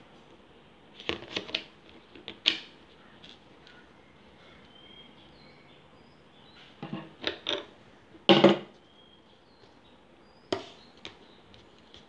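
Pliers and a metal rod clicking and knocking against a plastic plate while the rod's fitting is tightened: scattered clicks and knocks in a few short clusters, the loudest about eight seconds in.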